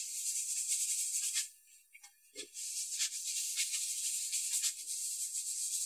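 Cloth rag rubbing Danish oil into a wooden board: a shaker-like swishing hiss of quick back-and-forth strokes, with a short pause about one and a half seconds in.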